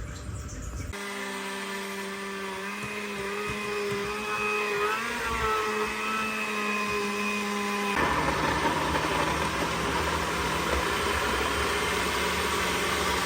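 Countertop blender running, blending chopped banana, apple, pear and yogurt into a smoothie. The motor starts about a second in with a steady hum, wavers briefly in the middle, and about eight seconds in turns louder and rougher.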